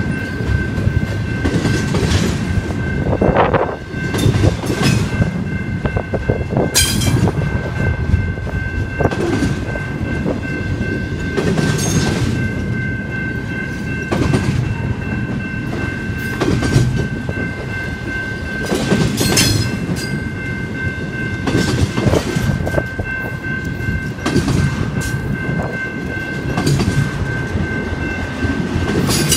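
Loaded double-stack intermodal train's well cars rolling past at a grade crossing: a steady heavy rumble with wheels clacking at irregular intervals, and a steady high-pitched tone above it.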